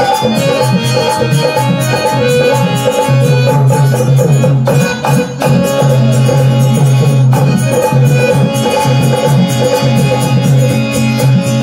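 Indian devotional folk music played live: two dholaks drumming a fast rhythm under the harmonium's held chords. The drumming breaks off for a moment about five seconds in, then picks up again.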